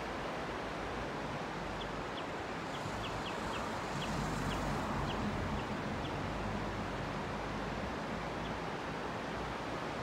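Shallow stream running over a rocky bed, a steady rush of water. A bird repeats short, high chirps between about two and six seconds in.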